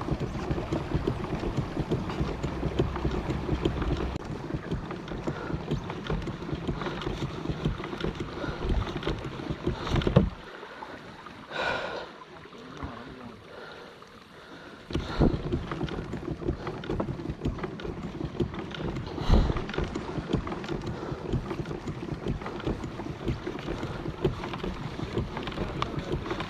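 Fishing kayak under way on a lake: a steady rush of water along the hull and wind buffeting the microphone. The noise drops away for several seconds around the middle, and a few knocks from the boat come through.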